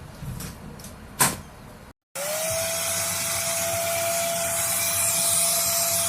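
Adorraa 4-in-1 cordless handheld vacuum cleaner: a few light clicks and one sharp click, then the motor runs with a steady whine over rushing air. The whine rises quickly in pitch as the motor starts, then holds steady.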